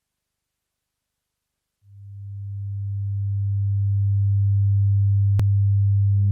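Synthesized oscilloscope music opening: after silence, a single deep pure tone swells in about two seconds in and holds steady. A brief click about five seconds in, and near the end a second, higher tone with overtones joins it.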